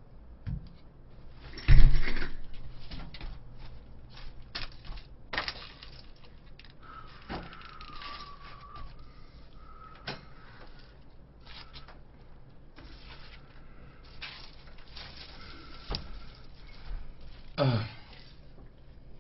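Bottles and a small folding table being handled and set down: a loud thump about two seconds in, then scattered knocks and clunks, with a brief squeak about seven seconds in and a short scrape near the end.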